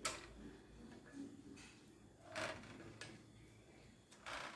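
Plastic serving spoon scraping and tapping against an aluminium baking pan as meat sauce is spread into it: a few short scrapes, a sharp one at the start, one about halfway, and a longer one near the end.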